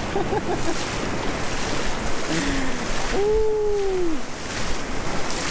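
Small surf waves washing in and running over the sand at the water's edge, a steady rushing wash. A brief voice-like sound, rising then falling in pitch, comes about three seconds in.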